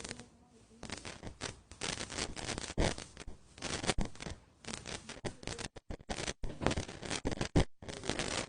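Dense, irregular rustling and scraping with sharp clicks, the handling and movement noise of people on the move, cutting off abruptly at the end.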